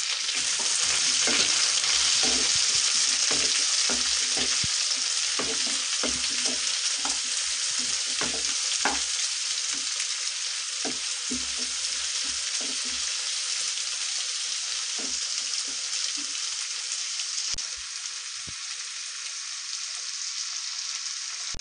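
Sliced onions sizzling in hot oil in a nonstick kadhai, stirred with a wooden spatula that knocks and scrapes against the pan. The sizzle is loudest at first and eases off, and the stirring knocks thin out near the end as the onions fry lightly.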